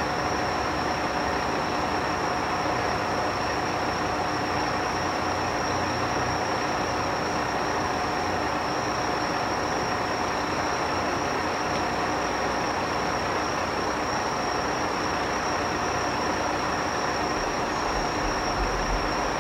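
Steady idling hum of Joso Line diesel railcars standing at the station platform, with a constant high-pitched whine over it. A low rumble from distant fireworks comes in near the end.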